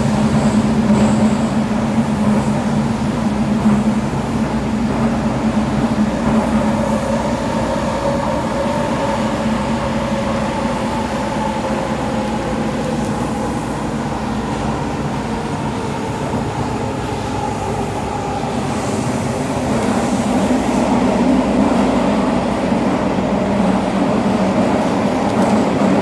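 Toei Oedo Line linear-motor subway car running, heard from inside the car: a steady rumble with humming tones. The tones sag slightly in pitch and loudness through the middle and pick up again about twenty seconds in.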